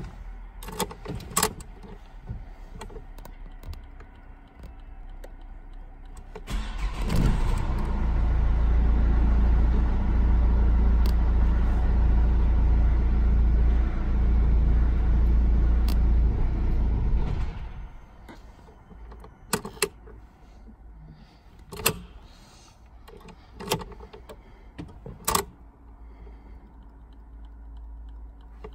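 Opel Astra H 1.7 CDTI four-cylinder diesel started from cold: it catches about six and a half seconds in, runs at a steady idle for about eleven seconds, then dies off. This is the cold-start stall that the owner traces to the fuel filter losing fuel overnight. Key clicks and jingles come before the start and after the stall.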